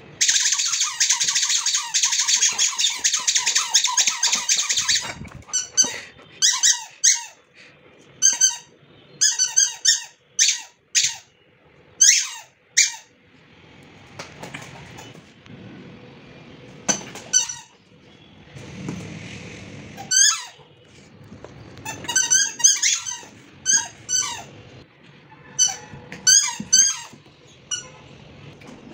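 Squeaky dog toy squeaking as a Labrador retriever chews it: a dense run of rapid squeaks for the first five seconds, then short clusters of squeaks with pauses between.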